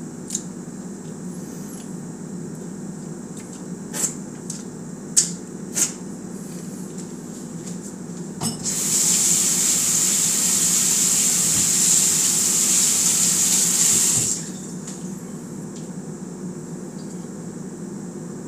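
Kitchen tap running into the sink for about six seconds, then shut off, over a steady low hum. Before it there are a few sharp knocks, like dishes being handled.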